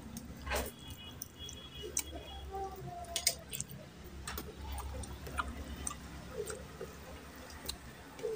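Close-up eating sounds: chewing and lip-smacking from eating mutton curry and rice by hand, heard as scattered small wet clicks and squishes.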